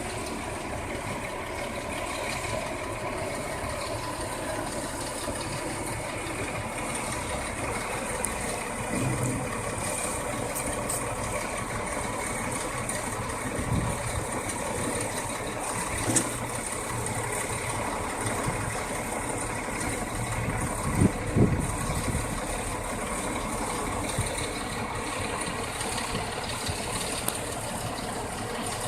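A steady engine running, with a few short knocks over it, the loudest a quick pair about two-thirds of the way through.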